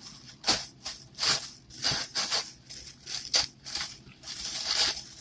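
Packaging rustling and crinkling in the hands as a small box is opened, in a quick, irregular run of short bursts.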